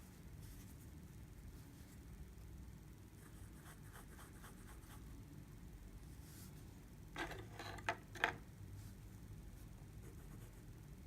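Fine steel nib of a TWSBI Precision fountain pen scratching faintly across paper in short writing strokes. About seven seconds in comes a louder run of strokes, ending with two sharp ticks.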